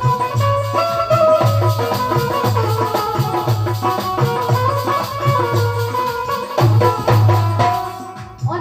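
Instrumental passage of a Bundeli Rai folk song: a melody instrument playing held notes that step up and down, over a steady drum beat with rattling percussion. The music dips in level near the end.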